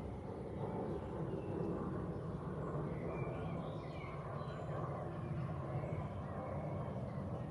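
Steady rushing of flowing water, with small birds chirping on and off over it, a cluster of short chirps about three seconds in.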